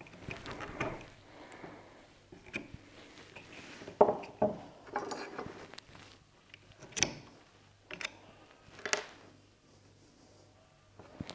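Small hand tool scraping and picking plastic out of a recess in a synthetic rifle stock, with a few sharp clicks and knocks, the loudest about four seconds in.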